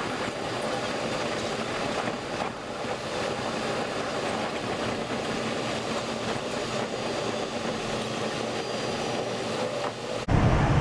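Running noise of a SEPTA Regional Rail commuter train, played back at four times speed, so it comes out as an even, high rushing noise with no low rumble. About ten seconds in it cuts abruptly to the train's running noise at normal speed, louder and deeper.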